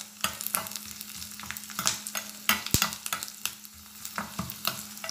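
Garlic, dried red chillies and curry leaves sizzling in hot coconut oil in a small pan, the tempering stage with the garlic browning. A steel ladle stirs through it with irregular clicks and scrapes against the pan.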